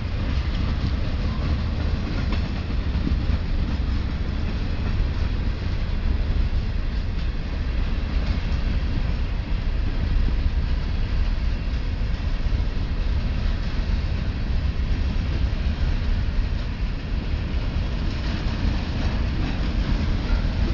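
Freight train rolling past: a steady, loud rumble of steel wheels on the rails with the clickety-clack of the cars, and no horn.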